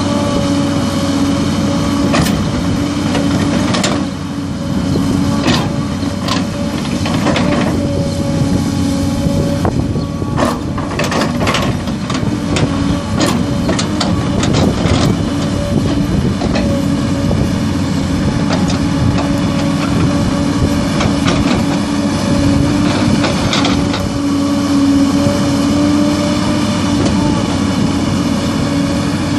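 Hidromek hydraulic excavator's diesel engine and hydraulics running steadily under load, with a steady whine over the engine hum. The bucket scrapes and knocks through stony soil, with a run of sharp clacks about halfway through.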